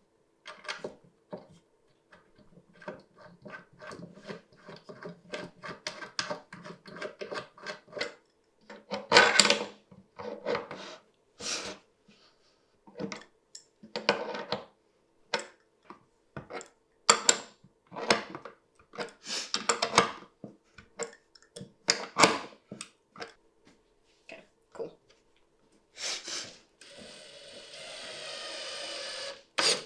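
Wooden parts being handled and knocked together, a run of quick light taps and then scattered heavier knocks. Near the end a drill/driver runs for about three seconds, its pitch rising, driving a screw into the table.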